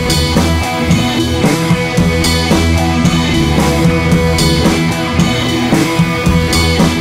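Background rock music with drums and guitar, keeping a steady beat.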